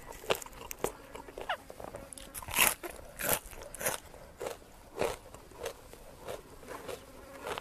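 A person chewing crunchy food close to a clip-on microphone: a string of crisp crunches, about one or two a second, unevenly spaced.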